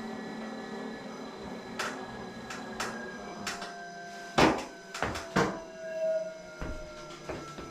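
Wahoo KICKR Bike with a faint whine that falls slowly in pitch, as when the flywheel coasts down, broken by a series of sharp creaking clicks, the loudest about halfway through. The clicks are the creaking noise that the owner is reporting to Wahoo as a fault.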